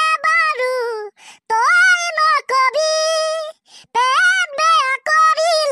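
A pitched-up, chipmunk-like cartoon character voice singing in short phrases, some notes held briefly, with short gaps between.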